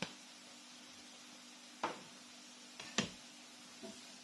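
A few short clicks and knocks of a spatula against a non-stick frying pan as curry powder is stirred into chopped spring onions, the loudest about three seconds in, over a faint steady hum.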